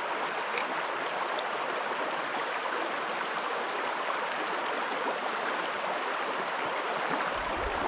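Shallow creek water running steadily over a rocky, pebbly riffle.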